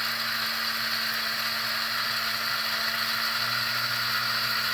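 Electric spice grinder running steadily, whirring as it grinds whole dry spices (coriander seeds, cumin seeds, black pepper, crushed peppers) into masala powder.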